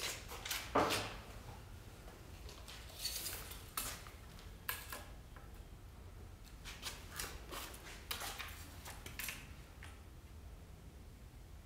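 Scattered light clicks and knocks of loose screws and plywood parts being handled, with a cluster of clicks near the end.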